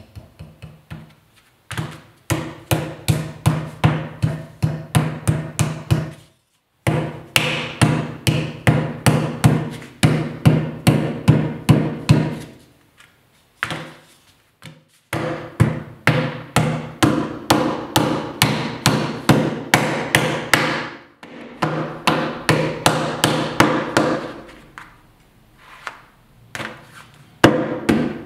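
Wooden clay mallet beating a lump of clay into a flat slab on a worktable: rapid repeated strikes, about three to four a second, in runs broken by several short pauses.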